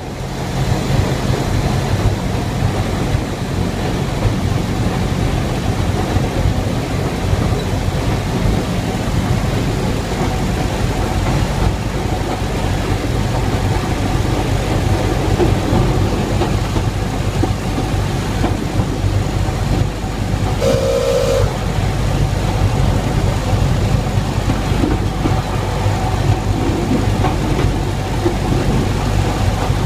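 Replica NZR Model T Ford railcar running along the track, heard from inside its cab: a steady low engine hum over the rolling of the wheels on the rails. A short tonal toot sounds about two-thirds of the way through.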